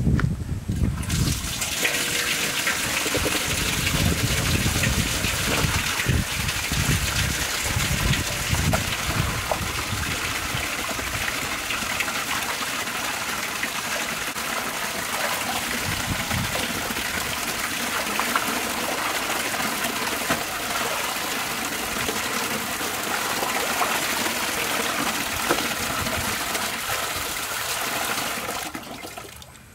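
Water gushing from an open tap on a plastic pipe into a large aluminium basin, with splashing as raw pork is washed by hand in it. The flow starts about a second in as the tap is opened and cuts off shortly before the end as it is closed.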